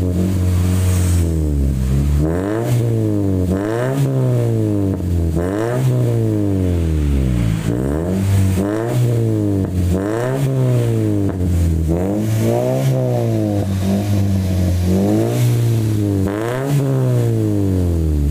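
Toyota Vios gen 3's four-cylinder engine revved up and down repeatedly through a Spoon-style aftermarket muffler, about once every one to two seconds, giving a bassy exhaust note. The stock manifold, catalytic converter and resonator are still fitted.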